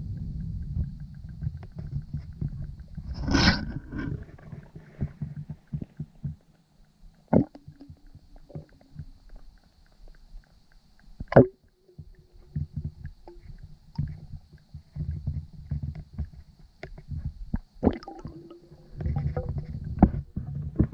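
Underwater sound in a swimming pool: a low, uneven rumble of water moving around the submerged camera, broken by many small clicks and a few louder knocks and bubble sounds. A faint, steady high whine runs beneath it and cuts out now and then.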